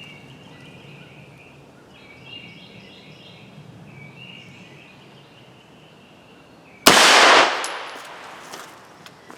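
A single 9mm rifle shot from an AR-9 pistol-calibre carbine about seven seconds in, a supersonic handload clocking about 1613 fps, with its report dying away over about a second.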